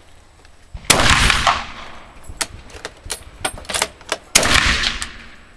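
Two shots from an SKS semi-automatic carbine in 7.62×39, about three and a half seconds apart, each followed by a long echo. Several fainter sharp cracks come in between.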